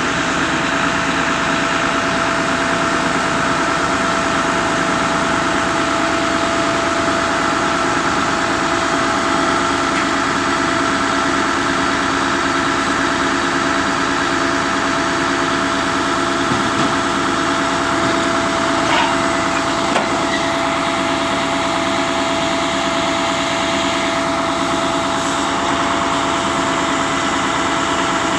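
Concrete pump's engine running steadily, with a constant mechanical drone and hum.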